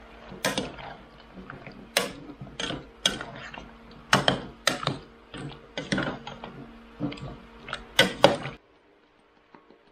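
A spatula stirring chopped zucchini and tomato in a stainless steel pot, knocking and scraping against the pot's side in irregular clacks, over a faint steady hum. The clacking stops abruptly near the end.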